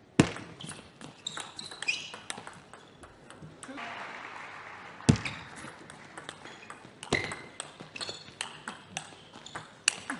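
A table tennis ball being struck back and forth by rackets and bouncing on the table during rallies, heard as runs of sharp ticks. A short burst of crowd noise comes just under four seconds in, between points.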